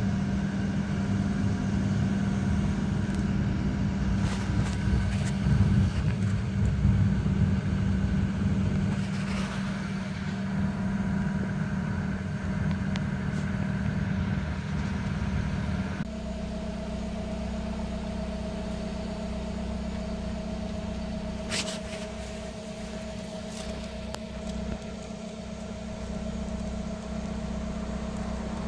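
Steady low mechanical hum with a held tone and rumble beneath it, which shifts abruptly to a thinner, slightly quieter hum about 16 seconds in. A brief high click comes a few seconds after the change.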